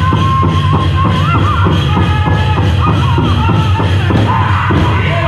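Powwow drum group singing a chicken dance song: high voices over a steady beat on a big drum.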